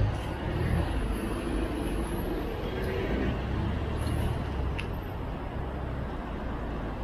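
BMW X5 SUV's engine running as the car moves off slowly at close range, its low hum fading about five seconds in, over the noise of street traffic.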